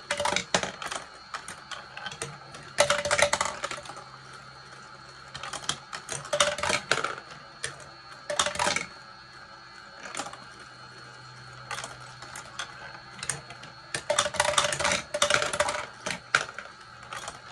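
A marble rolling and clattering along a marble run built from plastic blocks, in bursts of rapid clicks and rattles every few seconds with quieter rolling in between.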